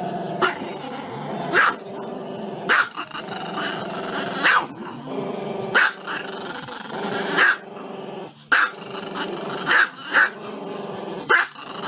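Small dog growling steadily, breaking into sharp barks roughly once a second without stopping the growl.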